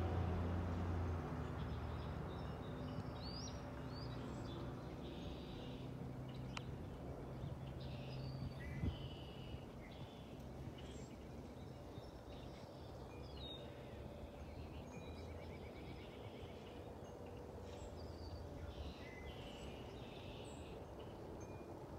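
Low, distant rumble of a Boeing 777-200 airliner passing high overhead at cruising altitude, slowly fading, with small birds chirping now and then. A single sharp tick about nine seconds in.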